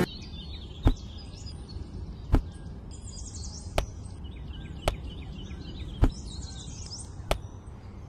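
Six sharp clicks, a little over a second apart, over faint chirping birdsong and a low steady rumble.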